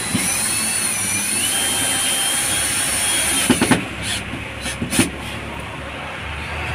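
Cordless drill driving in a headrest mounting screw: a steady motor whine, rising slightly in pitch, for about three and a half seconds, then stopping, followed by a few sharp knocks.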